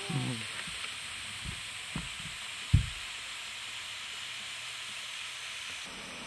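Steady hiss of water falling and rushing from a small waterfall into the reservoir. A few short low thumps cut through it, the loudest nearly three seconds in.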